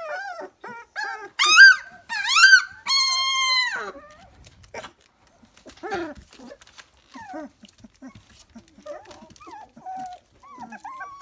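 Three-week-old Dalmatian puppies whimpering and squealing. A few loud high cries come in the first four seconds, the last one held for about a second. Then there are quieter, scattered squeaks and whines.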